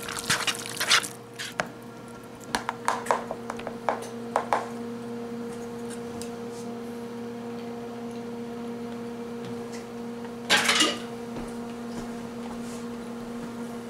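A spoon scraping and clinking in a plastic mixing bowl of thick chicken pot pie filling as it is stirred, a run of short knocks in the first few seconds. Then a steady low hum, broken by one brief clatter about ten seconds in.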